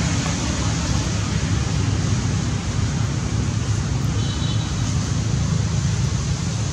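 Steady rushing outdoor noise with a low rumble underneath, and one brief high chirp a little over four seconds in.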